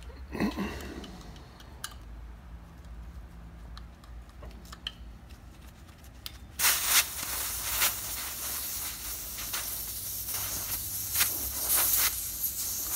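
Compressed air hissing at a bus tire's valve stem, starting abruptly about halfway in and continuing with brief surges. Before it, a thump and a few light clicks of handling.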